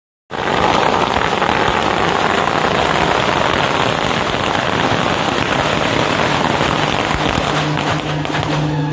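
A long string of firecrackers going off in a dense, continuous crackle. Near the end the crackling thins and a steady low note comes in.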